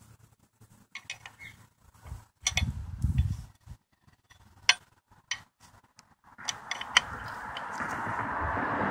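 Sharp metal clicks and clinks of a 17 mm wrench working the nut of a switch on a clutch pedal bracket, with dull handling knocks. From about six seconds in, a vehicle approaching, growing steadily louder.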